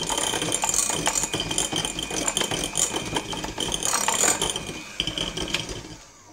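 Electric hand mixer running, its beaters rattling in a glass bowl as they whip soft butter; the motor is switched off near the end.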